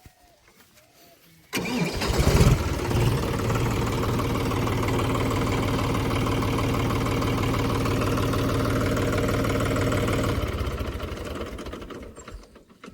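John Deere 5050D tractor's three-cylinder diesel engine starting suddenly, then running steadily at idle for about seven seconds before dying away near the end.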